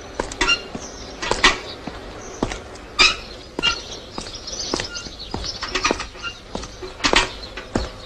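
Short, high chirping animal calls, one roughly every second, over scattered faint clicks and crackle.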